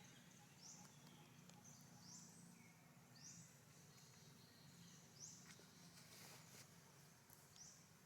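Faint outdoor ambience: a short, high, rising chirp from a calling animal, repeated every second or two, over a steady low hum, with a few faint clicks near the middle.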